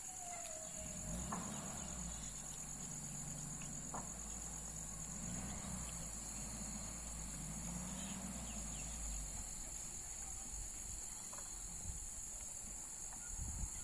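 Insects chirring in a steady high-pitched drone. Under it, from about a second in until about ten seconds in, a low vehicle engine rumble swells and fades a few times.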